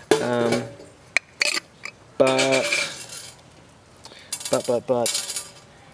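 Roasted coffee beans rattling and clinking against a glass jar as a hand pushes into them, with several sharp clicks, along with a few short wordless vocal sounds.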